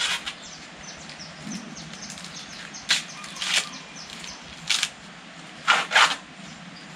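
Ears of fresh green corn being husked by hand: about six short, crisp tearing rips as the husks are pulled away, the loudest a quick pair near the end.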